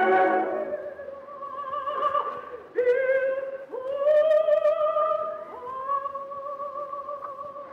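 Operatic soprano voice singing a slow phrase of long held notes with a wide vibrato, several notes sliding up into pitch, growing softer near the end; an old live recording.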